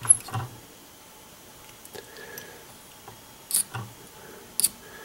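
Tying thread being wrapped in crisscross turns around foam booby eyes on a hook in a fly-tying vise: a few short, sharp clicks and ticks from the thread and bobbin, the loudest right at the start and others about three and a half and four and a half seconds in.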